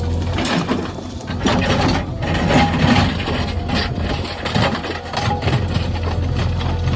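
A JCB 3DX backhoe loader's diesel engine running steadily, with irregular knocks and crackling scrapes over it.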